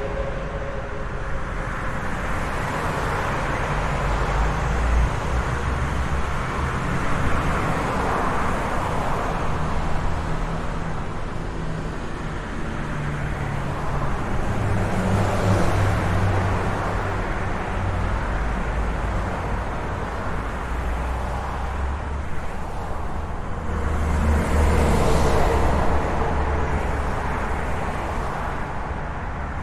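Road traffic: a steady rumble of cars with several vehicles passing close by, swelling and fading about every few seconds, the loudest pass late on.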